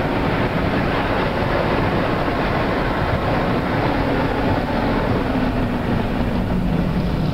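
Road noise inside a moving car: a steady rush of tyre and engine noise, with a low engine hum that drops slightly in pitch near the end.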